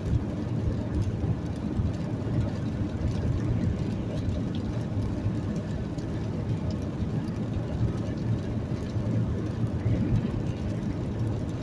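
Steady low rumble of a vehicle on the move, engine and road noise running evenly.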